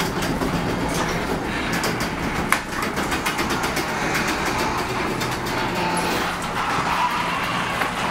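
Electric garage door opener running as it raises the door: a steady mechanical run with a continuous light rattle and clicking.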